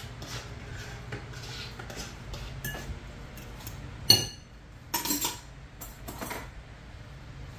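A utensil scraping and tapping food off a plastic plate into a glass bowl, with light clicks throughout. There is one sharp clink that rings on the glass about four seconds in, and a couple more clatters after it.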